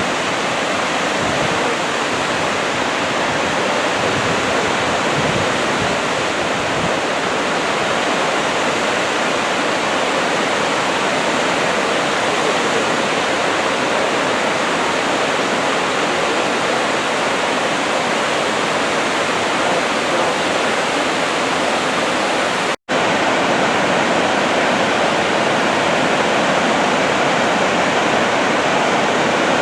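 Waterfall water rushing steadily, an even, full noise throughout. It cuts out for an instant about three-quarters of the way through and resumes unchanged.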